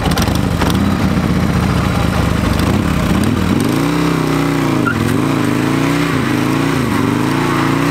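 Harley-Davidson Sportster V-twin engine held at high revs for a rear-tyre burnout, its revs dipping and rising again several times from about halfway through.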